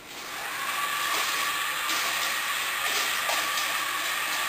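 R2-D2 Interactive Astromech Droid toy's electric drive motors whirring as it rolls forward, carrying out a spoken "go forward, four units" command. A steady whine with hiss that starts just after the beginning and fades near the end.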